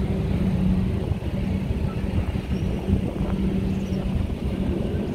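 Street traffic: a nearby motor vehicle engine running with a steady low hum over a dense rumble.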